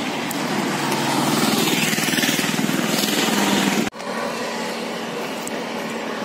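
Highway traffic noise: a vehicle's engine swells louder as it passes close by, then cuts off suddenly about four seconds in, leaving steadier road noise.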